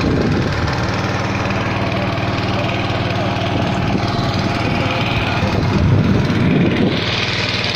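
A small motorboat's engine running steadily while the boat is under way, its pitch holding even.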